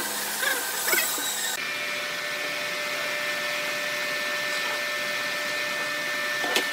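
Steady hum of an electric motor running, with a constant whine, setting in abruptly about one and a half seconds in; before it, a few short scraping strokes, and a light tap near the end.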